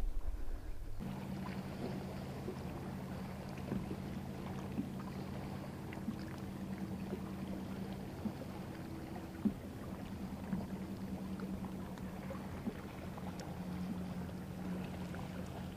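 A boat motor running steadily with a low hum, beginning about a second in, with a few faint small clicks on top.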